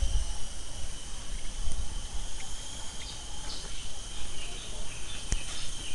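Wind buffeting the microphone over a steady high chirring of insects, with one sharp click about five seconds in.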